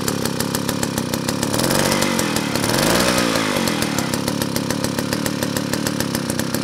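1950 Stihl BL chainsaw's 125 cc two-stroke engine running, revved up and back down about two to three seconds in, then running steadily again. The seized carburettor slide valve has just been repaired, and it runs pretty good.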